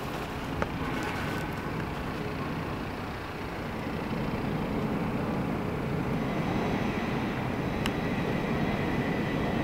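Garbage compactor truck running: a steady mechanical rumble that grows louder about four seconds in, with a sharp click near the end.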